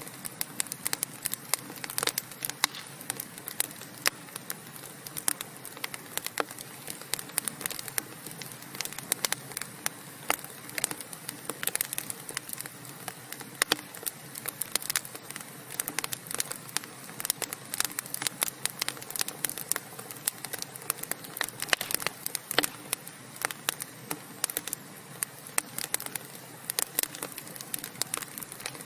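Wood fire crackling in a fireplace: a dense run of irregular sharp pops and snaps over a steady low hiss of burning logs.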